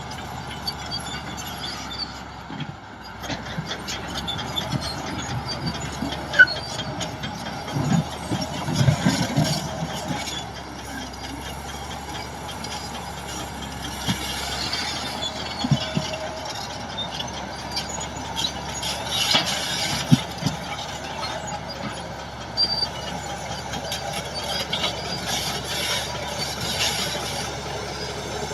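Tracked earth-moving machinery working: a diesel engine running under load, with squealing steel tracks and scattered metallic clanks and knocks, the loudest about six seconds in and a cluster around eight to ten seconds.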